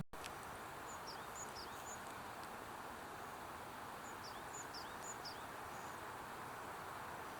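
A small bird giving thin, high call notes: a run of about four near the start and another a few seconds later, over steady outdoor background noise.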